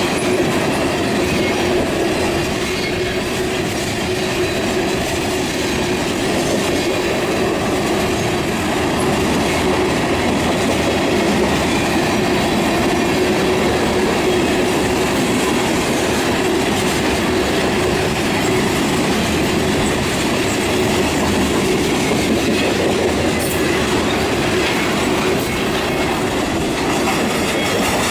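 Freight train rolling steadily past, its cars running on the rails at an even level.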